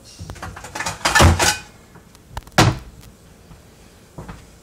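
Kitchen handling noises as a plate is fetched: a loud scraping rustle about a second in, then a single sharp knock halfway through, and a faint tap near the end.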